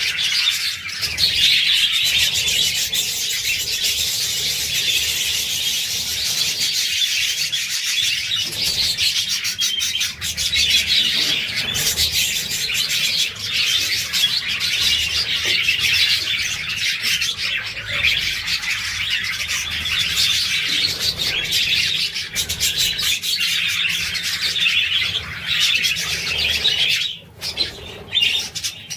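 A flock of budgerigars chattering and chirping, a dense, unbroken warble of fast twitters.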